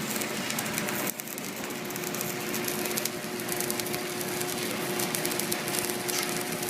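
Stick-welding arc crackling and sizzling steadily as an electrode is run along the metal. It cuts out briefly about a second in, then resumes, with a faint steady hum underneath.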